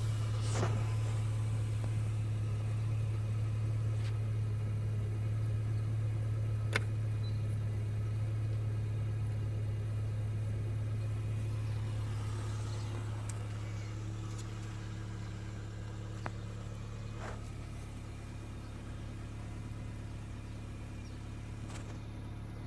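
Car engine idling, a steady low hum, with a few single light clicks scattered through it. No seat belt warning beeping is heard.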